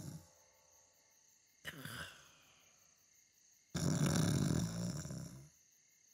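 A man snoring in a cartoon. A snore tails off at the start, a short breath with a falling pitch comes about two seconds in, and a long, loud, buzzing snore runs from about four seconds in.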